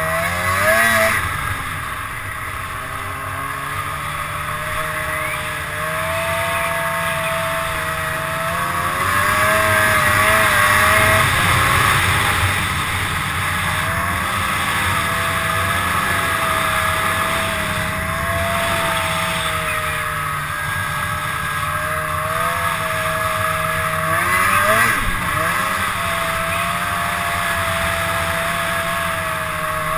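2002 Arctic Cat ZR 800 snowmobile's two-stroke twin engine running under way, its pitch rising and falling as the throttle changes, loudest around ten seconds in.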